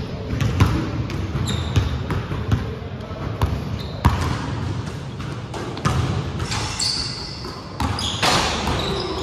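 Basketball being dribbled on a hardwood gym floor, a run of sharp bounces, with short high sneaker squeaks on the court in the second half.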